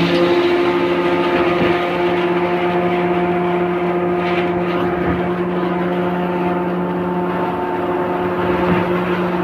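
Concrete-pouring machinery running steadily during a girder pour: a loud, continuous motor drone with a steady hum held over rough mechanical noise.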